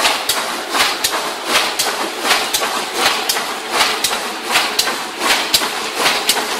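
QH-9905 paper boat tray forming and gluing machine running at its set speed of 80: a steady rhythmic clatter, a sharp stroke about every half second as each tray is formed.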